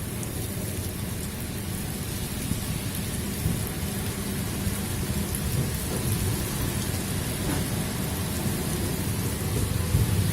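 Strong wind blowing in gusts: a low, shifting rumble with a steady hiss above it, growing a little louder toward the end.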